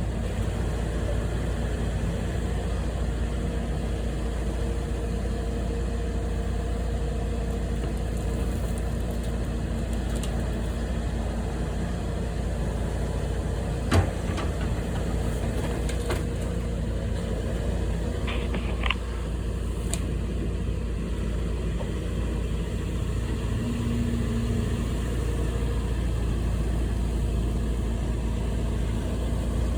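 A steady engine hum, like a machine idling, with one sharp knock about halfway through and a few faint clicks a few seconds later.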